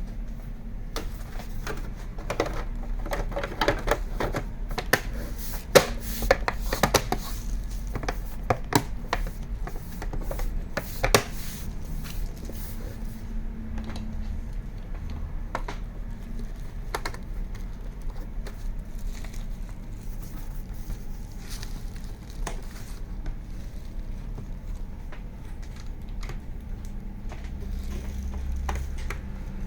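Hands working on an all-in-one desktop computer's plastic case and parts: a quick run of sharp clicks and taps for about the first twelve seconds, then only scattered clicks. A steady low hum runs underneath.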